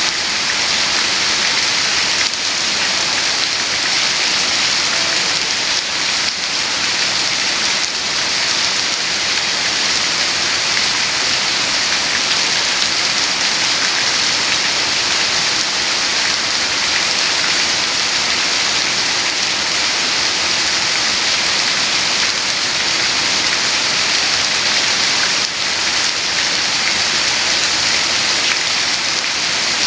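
Heavy rain falling steadily, a dense even hiss of drops hitting surfaces.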